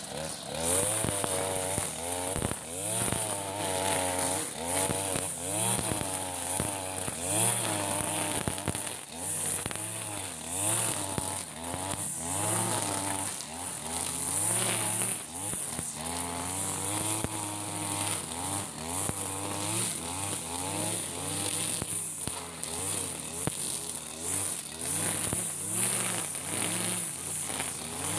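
Backpack two-stroke brush cutter running as it cuts tall grass, its engine pitch rising and falling over and over as the head bogs into the grass and frees up again.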